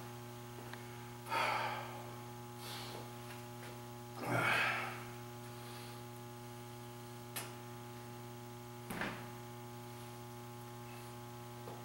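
Steady electrical mains hum, with a man breathing out heavily a few times, the loudest exhale about four seconds in.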